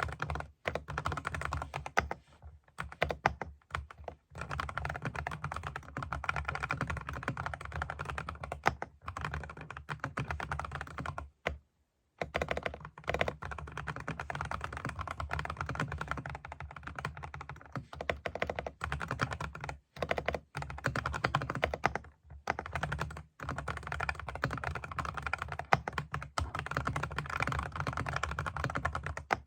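Typing on an SPM PL87A keyboard: a fast, continuous run of key clicks broken by brief pauses, the longest about twelve seconds in.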